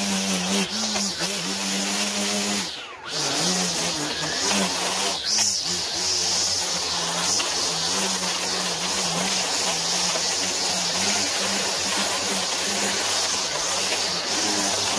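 Small gas engine of handheld lawn equipment running near full throttle, its pitch wavering slightly, with a brief dip in speed about three seconds in.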